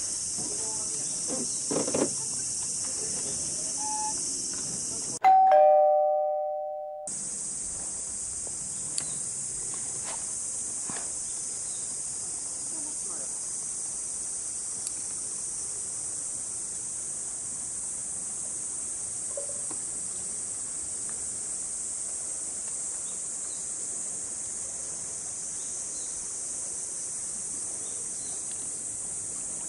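A steady, high-pitched drone of an insect chorus. About five seconds in, a loud two-note ding-dong chime sounds once and fades over about two seconds, with the outdoor sound cut out under it.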